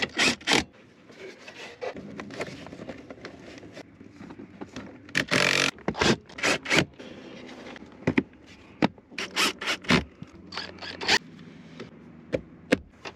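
Hands working on car parts during a turn signal relay install: irregular scraping and rubbing broken by sharp clicks and knocks, the loudest around the start, the middle and near the end.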